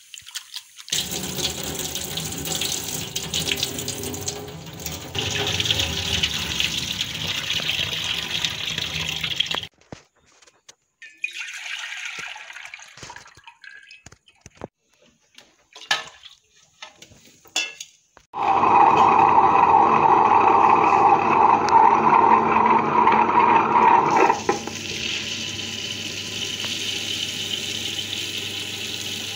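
Water sloshing as soaked urad dal is rinsed by hand in a steel bowl. This is followed by scattered splashes and clinks, then a loud steady rush of running water for about six seconds. Near the end a tabletop wet grinder's stone rollers turn steadily, grinding the dal.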